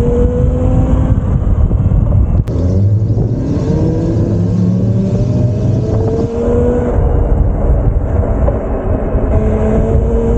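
E-bike electric motor whining and rising in pitch, again and again, as the bike speeds up, over a heavy low rumble of wind and tyre noise while riding. There is one sharp click about two and a half seconds in.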